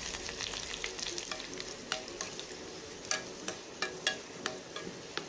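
Hot oil sizzling in a frying pan as dry red chillies, curry leaves, garlic, cumin and mustard seeds fry for a tempering, with a metal spoon stirring through it. Scattered sharp clicks, about one or two a second, sound over the steady sizzle.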